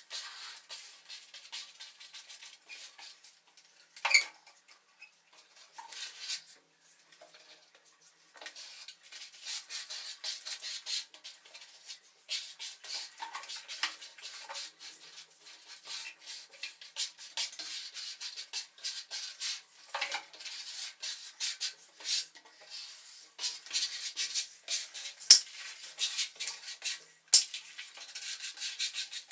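A dense run of clicks, taps and scraping rubs from tools and materials being handled, with a sharp knock about four seconds in and two louder knocks near the end.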